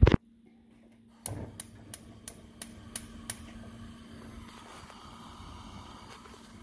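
A knock, then a gas stove's spark igniter clicking seven times, about three a second, as the burner is lit, followed by the steady faint hiss of the burning gas.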